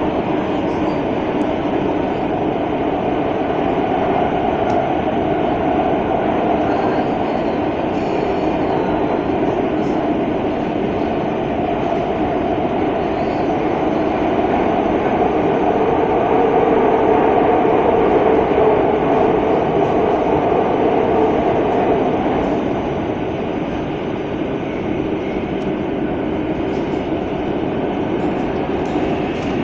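Madrid Metro Line 12 train running through the tunnel between stations, a steady rumble of wheels on rail. It grows somewhat louder past the middle, then eases off a little about three-quarters of the way through.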